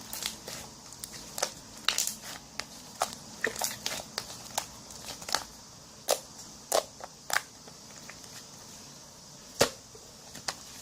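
Slime clay being pressed and stretched by hand, giving off irregular sharp pops and clicks as trapped air bursts, a few louder snaps among them, over a faint steady hiss.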